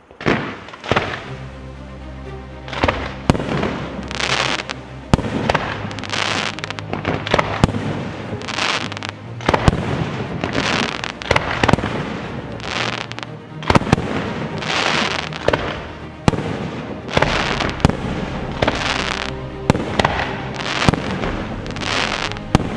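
Fireworks display: shells and comets launching with rushing hisses and bursting in sharp bangs, one after another throughout, over music with steady low tones.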